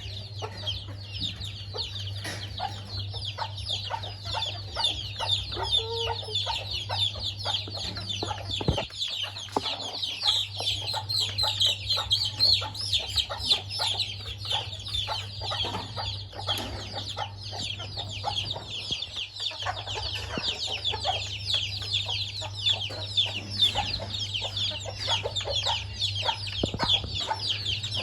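A flock of chickens clucking and peeping while feeding, with many short high calls overlapping all the way through, over a steady low hum.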